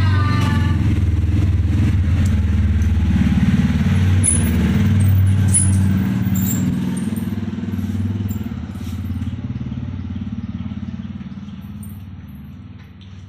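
Motorcycle engine running with a steady low note, then riding off and fading gradually from about halfway through.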